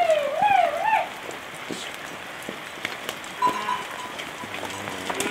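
A single wavering bleat from the passing livestock in the first second, followed by a soft, even patter with scattered light ticks.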